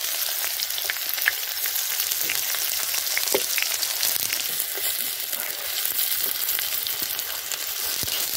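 Sliced onions frying in hot oil in a metal kadai: a steady sizzle, with a few light scrapes and clicks of a steel spatula stirring them against the pan.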